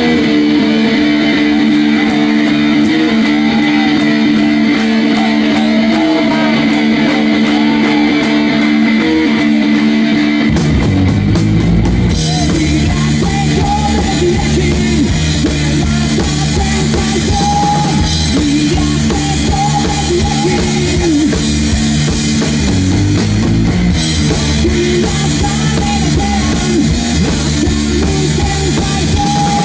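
Live rock played on electric guitar and drum kit. The guitar rings out alone in sustained chords for about ten seconds, then the drums come in with cymbals and both play on together.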